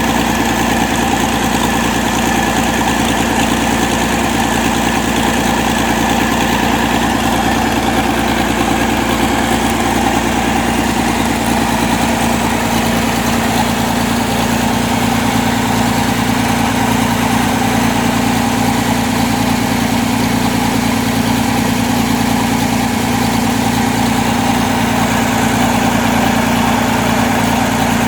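Mitsubishi six-cylinder diesel engine from a Cat 320C excavator, just rebuilt, running steadily at idle on a test bench during its post-repair test run.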